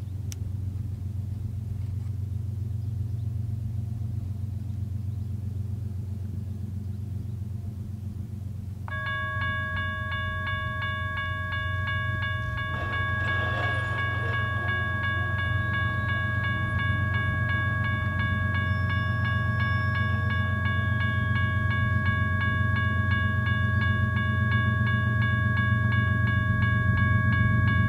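Diesel locomotives of an approaching freight train rumbling, slowly growing louder. From about nine seconds in, a steady high ringing tone of several pitches joins and holds without a break.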